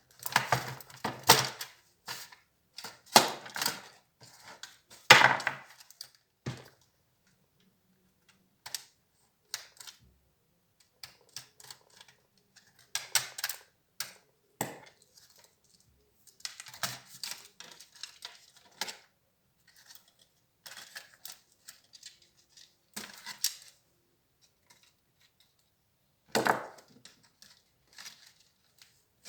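Intermittent clicks, scrapes and clatter of plastic and small metal laptop parts being handled while an HP Compaq 6910p laptop is taken apart, in short clusters separated by pauses.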